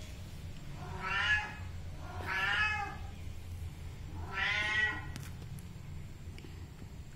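Domestic cat meowing three times, each call lasting under a second, with a gap of a second or two between calls.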